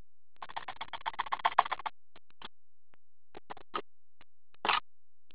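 Plastic crinkling for about a second and a half, then scattered clicks and taps as a clear plastic card case is handled, with a louder click near the end.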